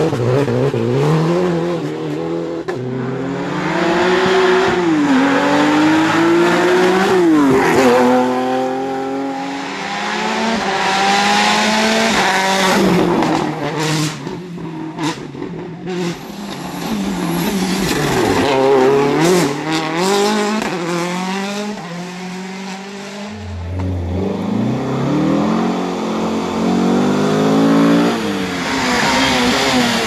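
Rally cars driven hard through tight tarmac bends, their engines revving high, then dropping sharply through gear changes, several times over. There are a few sharp cracks around the middle.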